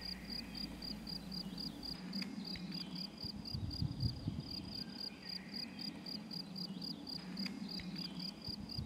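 Outdoor insect chirping, cricket-like: a steady, regular train of short, high-pitched chirps. A few soft low bumps come about three and a half seconds in.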